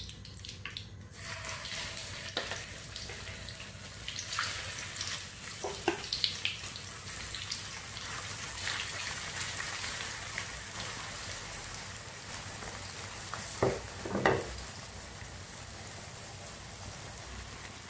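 Marinated chicken pieces deep-frying in hot sunflower oil, a steady sizzle that starts about a second in as the pieces go into the pan. A slotted spoon stirring them knocks and scrapes against the pan now and then.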